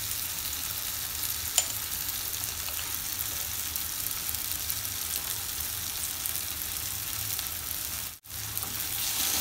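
Onion and tomato masala sizzling steadily in hot oil in a nonstick kadai, with one light click about one and a half seconds in. The sound drops out for a moment near the end.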